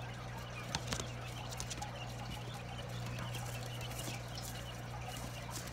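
Day-old quail chicks peeping in a brooder, with small taps and scratches and a couple of sharper taps about a second in, over a steady low hum.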